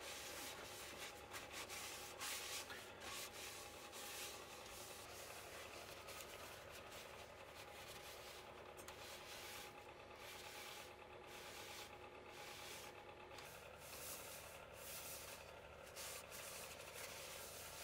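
Cloth rag rubbing against a small cherry bowl turning on a wood lathe, wiping on finish: a faint, uneven hiss of rubbing strokes over a steady low hum from the lathe.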